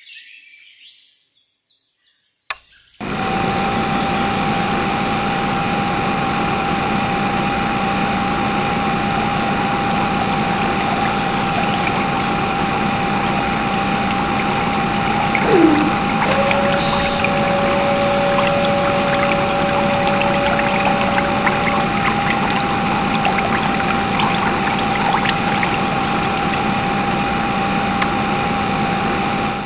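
Small electric water pump running, with a steady whine over water pouring and splashing from its hose. It starts suddenly about three seconds in.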